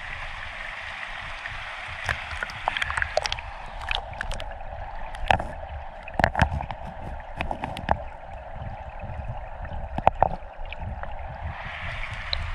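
Steady rush of flowing stream water, with scattered sharp clicks and knocks through most of it.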